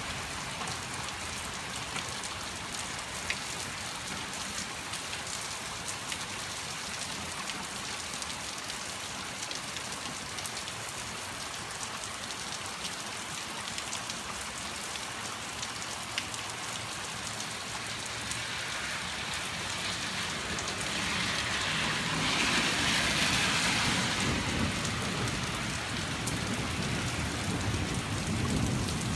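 Steady rain falling, with scattered drip clicks. About two-thirds of the way in, a rumble and hiss swell up and stay louder to the end.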